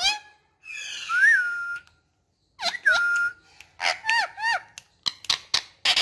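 Indian ringneck parakeet whistling: two whistles that slide up and then hold a steady note, followed by short chirpy calls and a run of sharp clicks near the end.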